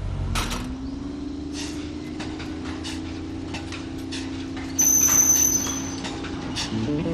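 A collapsible steel accordion gate rattling and clicking as it is handled, with a high metallic squeal for about a second near the five-second mark, over a steady mechanical hum.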